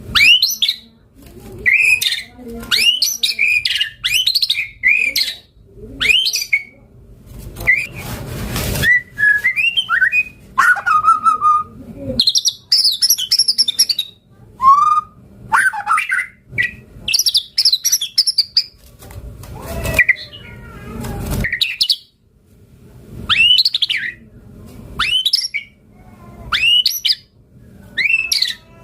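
White-rumped shama singing a loud, varied song. It delivers short phrases one after another every second or two, made of quick rising and falling whistled notes and chatters, with one harsh rasping burst about a third of the way in.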